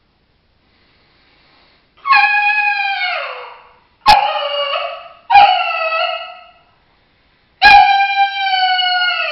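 MFK mouth diaphragm coyote howler call blown through cupped hands: four howls, each starting with a sudden pop, holding one pitch and sliding down at the end. The first and last are the longest. It is a beginner's imitation of a coyote howl.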